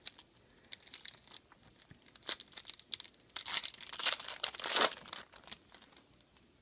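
Foil card pack wrapper crinkling and being torn open, in irregular crackly bursts, loudest between about three and a half and five seconds in.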